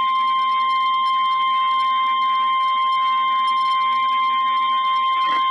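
NOAA Weather Radio's 1050 Hz warning alarm tone: one steady, unbroken high-pitched tone at an even level. It is the alert that precedes a warning broadcast, here a tornado warning.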